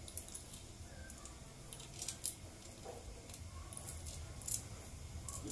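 Honda Supra X 125/Karisma engine cam chain clinking as it is fed by hand into the crankcase onto the crankshaft: a scatter of small, sharp metallic clicks, the loudest about two seconds in and again past four seconds.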